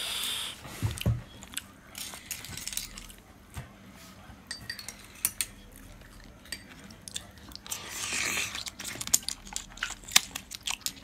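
Cooked clam shells clicking and clinking against each other and against a stainless steel bowl as they are handled: scattered sharp clicks, with short stretches of shells shifting and rustling, the longest about eight seconds in.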